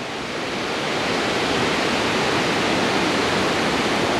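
Steady rush of a mountain river and waterfall, swelling slightly over the first second.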